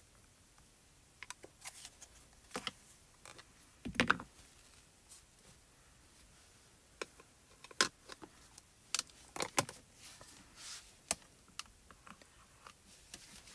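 Scattered small clicks and knocks from handling round plastic ink pad cases and a stamping platform's hinged acrylic lid, with the sharpest knock about four seconds in.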